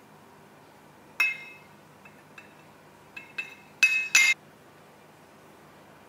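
Measuring spoon clinking against the rim of a glass measuring jug, knocking off cocoa powder. There is one sharp clink with a short glassy ring about a second in, then a few light taps, then a quick run of louder clinks around four seconds in.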